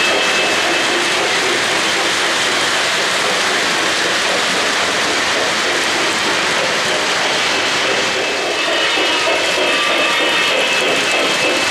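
Steady rolling rumble of O-gauge three-rail model freight trains running on the track close by, their wheels and cars rattling along the rails.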